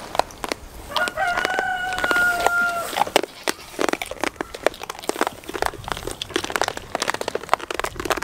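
A rooster crowing once: a single held call of about two seconds, starting about a second in. Many short rustles and clicks, like footsteps in dry straw, run around it.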